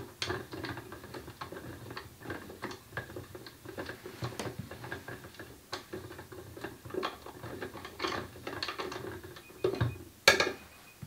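A plastic film-developing tank being agitated by turning its agitator rod, spinning the film reel inside in the stop bath: a run of irregular clicks and rattles, with a louder knock near the end.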